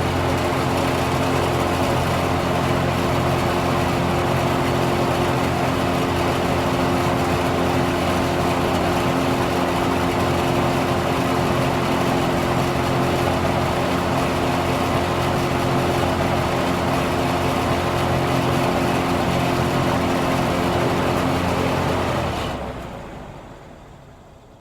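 A motor engine running steadily at a constant speed, then fading out near the end.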